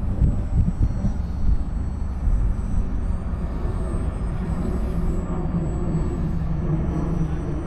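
Wind buffeting the microphone over the distant hum of a radio-controlled model airplane's motor. The hum grows stronger from about halfway through.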